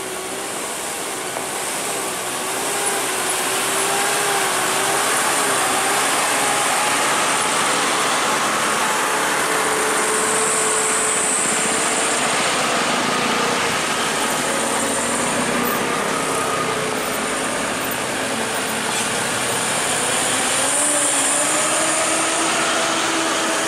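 Heavily loaded cargo trucks' diesel engines labouring up a steep gravel climb, one truck after another, the engine note wavering and rising in pitch toward the end, over a steady noise of tyres on loose stone.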